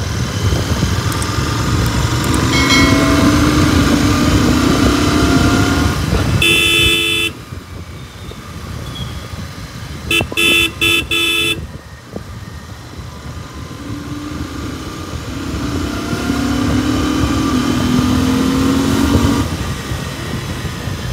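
Royal Enfield Continental GT650's parallel-twin engine pulling under acceleration with wind and road rumble, twice rising steadily in pitch for several seconds. A vehicle horn sounds once for about a second, then gives a quick run of short beeps a few seconds later.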